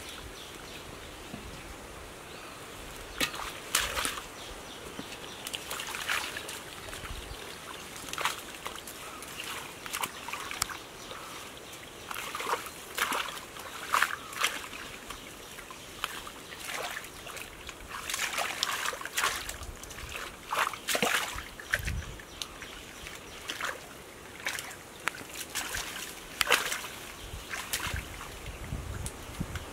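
Hands groping and splashing in shallow muddy water among water plants: irregular wet splashes and sloshes, some sharp and loud, with short quiet gaps between them.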